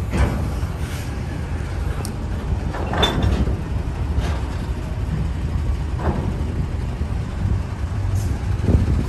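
Heavy diesel machinery running with a steady low rumble, broken by a handful of sharp metallic clanks and knocks.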